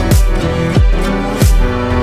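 Background music with a steady, deep bass drum beat about every two-thirds of a second, each hit dropping in pitch, over sustained instrumental notes.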